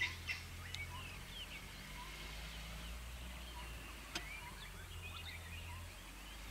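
A busy scatter of bird calls: many short chirps and quick rising and falling notes, with a sharp click about four seconds in. There is a low steady hum underneath.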